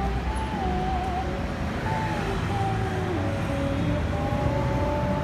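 Steady street traffic noise, with thin held tones wavering and sliding in pitch above it, sometimes two at once.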